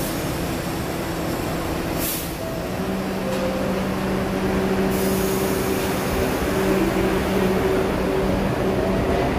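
R62 subway train at the platform: its air brakes hiss in two short releases, about two seconds in and again around five seconds, over a steady motor hum as the train starts to pull out near the end.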